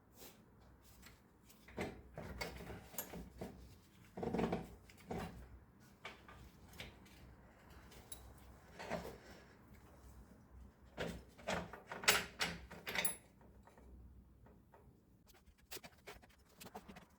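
Scattered clunks, knocks and scrapes of metal parts being handled as a motorcycle's rear wheel is pulled free after its axle is removed, with a cluster of knocks near the middle and again about three quarters of the way through.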